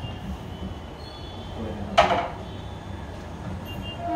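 A single sharp knock from a kitchen cabinet, with a brief ring after it, about two seconds in, over a steady low rumble.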